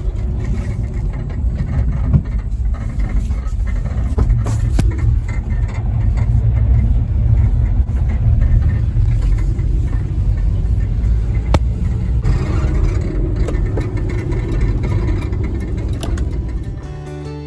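Suzuki Carry kei truck driving, with steady engine and road rumble and a few sharp clicks or knocks scattered through it.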